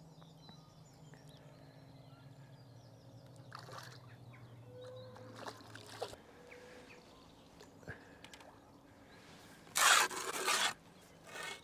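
Water splashing as a hooked fish thrashes at the surface by the landing net, in a loud burst just under ten seconds in and a shorter one just after, following several quiet seconds.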